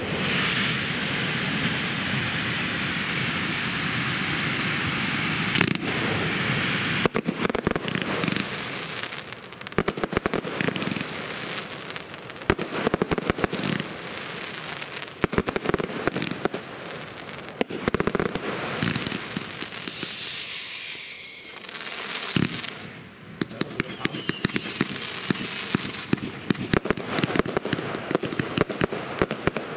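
Professional firework display: a steady hissing rush at first, then from about seven seconds in a dense run of sharp bangs and crackles from bursting shells. Twice, high whistles that fall in pitch sound over the bangs.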